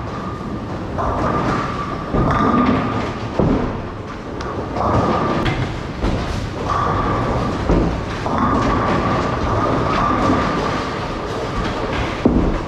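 Bowling alley sound: balls rolling down the lanes in a steady rumble, broken by a few sharp crashes of pins being struck, roughly every four seconds.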